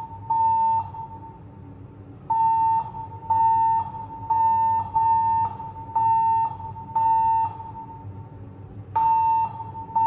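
Siemens fire alarm speaker-strobe sounding an evacuation tone: one steady, mid-pitched tone pulsing on and off about once a second, in groups broken by longer pauses, a temporal evacuation pattern that signals everyone to leave the building.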